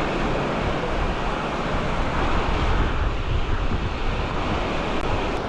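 Sea waves washing on a beach, a steady rushing noise, with wind rumbling on the microphone.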